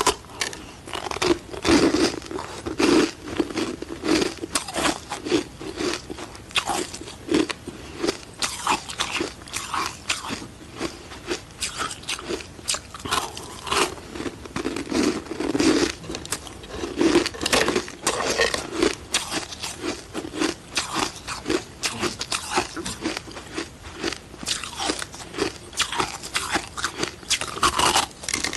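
Close-up crunching of frozen ice sticks being bitten and chewed: a quick, uneven run of crisp cracks and crunches, several a second.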